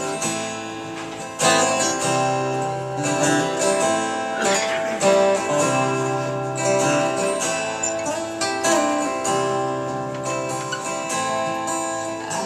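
Acoustic guitar strumming the chord intro of a country song, before the vocals come in.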